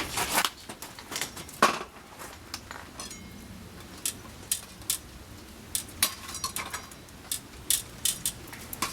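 Cooking utensils clicking and clinking at a barbecue, irregular sharp taps of metal on metal and dishes, the loudest knock about a second and a half in.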